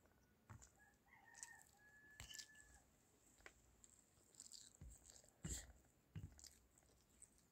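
Fingers mixing cooked rice on a steel plate: soft squishing with scattered light clicks and taps, the loudest about five and a half seconds in. A faint drawn-out bird call sounds about a second in and lasts about two seconds.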